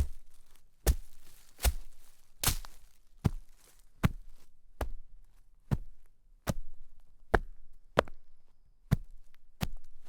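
Footsteps crunching through shallow snow at a steady walking pace, a little over one step a second.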